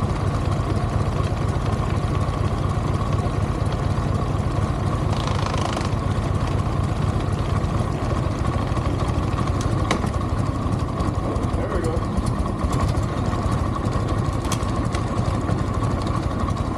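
Harley-Davidson Evolution 80 cubic inch V-twin engine idling steadily, freshly started on choke.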